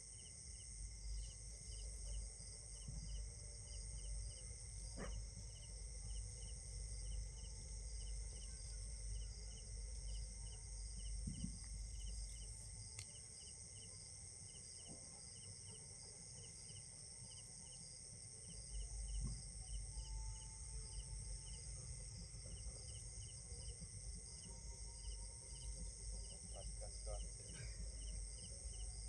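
Insects chirping: short chirps repeating about three times a second over a steady high-pitched insect drone, with a low rumble underneath that drops out for a few seconds in the middle.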